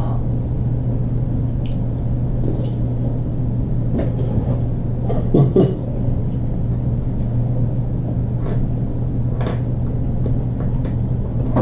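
A steady low hum, with a few short clinks of spoons against ceramic soup bowls scattered through it.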